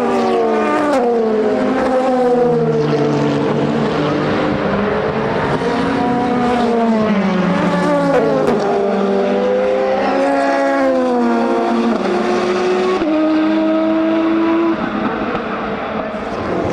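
Race car engines at the track, several overlapping, their pitch climbing and dropping through gear changes as cars pass one after another. One engine holds a steady note for a moment near the end.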